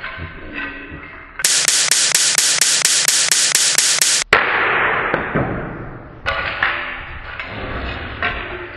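A CD bent until it shatters with a sharp crack, followed by about two seconds of fading noise. Before the crack comes nearly three seconds of loud noise broken into quick, even strokes, about four or five a second, with background music at the start and near the end.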